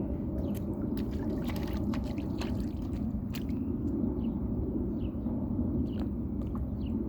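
Water splashing and dripping in a rain puddle as a toddler plays in it: scattered small splashes over a steady low rumble.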